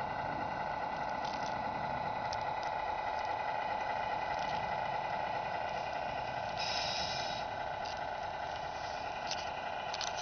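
Steady high whine of a small electric motor in a radio-controlled model truck, running at an even pitch. A brief hiss comes about seven seconds in, and there are a few light clicks.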